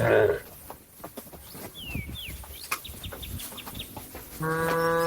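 Cow mooing: the rough end of one loud moo at the start, then a long, level moo beginning near the end. In the quieter gap, small birds chirp.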